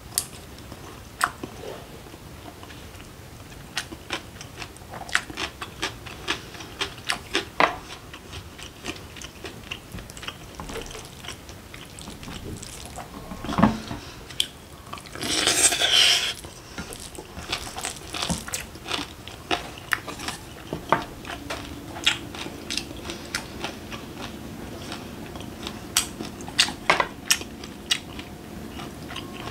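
Close-up eating sounds: chewing and crunching mouthfuls of curry rice and pickled vegetables, with many sharp clicks of wooden chopsticks and a spoon against a glass bowl, and one longer scrape of the spoon in the bowl about halfway through.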